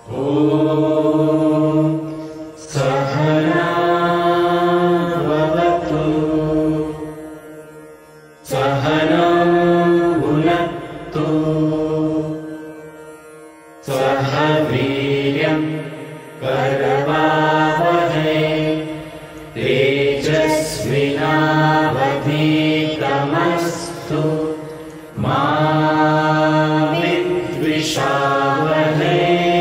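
Group of voices chanting a prayer mantra in unison, in long melodic phrases with short breaks between them.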